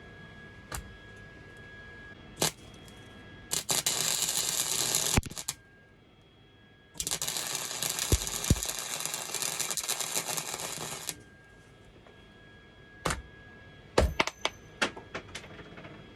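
Wire-feed welder arc crackling in two bursts, a short one and a longer one of about four seconds, as a bolt is welded onto a go-kart steering knuckle. Sharp clicks come before and after the bursts.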